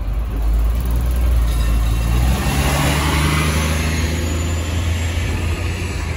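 City bus engine rumbling as the bus accelerates away close beside an open-sided streetcar: a loud low rumble for the first two seconds or so, then a steadier engine hum.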